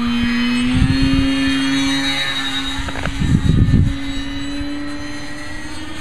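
Electric RC plane's brushless outrunner motor (Turnigy 3542 1250Kv) driving a 12x6 propeller in flight, a steady drone with a slight shift in pitch. Gusty wind buffets the microphone about a second in and again around three and a half seconds.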